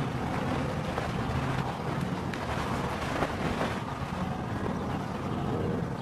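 Wildebeest herd running: a steady rumble of many hooves on the grass.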